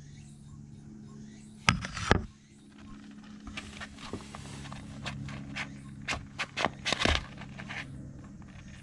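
A kitten handling a brown paper bag, the paper crinkling in a run of short, irregular crackles. About two seconds in there is a louder rustle and clatter as it climbs into the white wire rack where the bag lies.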